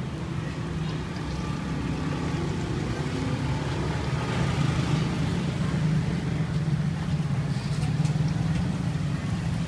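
Steady low rumble of engines in street traffic, with faint sizzling from dough balls deep-frying in oil.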